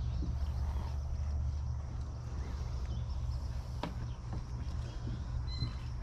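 Footsteps on the planks of a wooden boardwalk, with scattered light knocks and one sharper knock about four seconds in, over a steady low rumble. A single short bird chirp comes near the end.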